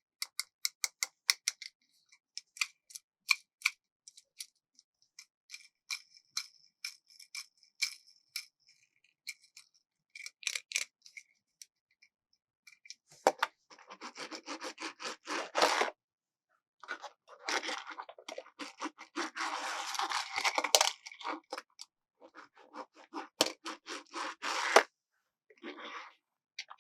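Close-up tapping on a plastic toy car, in quick runs of sharp clicks, then long stretches of dense scratchy brushing and rubbing, and another run of rapid taps near the end.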